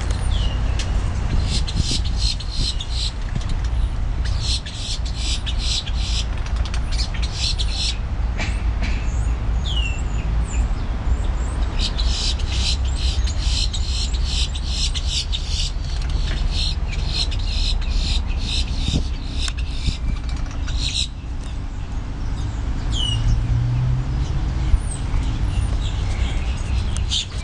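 Boat-tailed grackles calling: long runs of rapid, harsh clicking notes, with a few short upslurred whistles in between. A steady low rumble runs underneath.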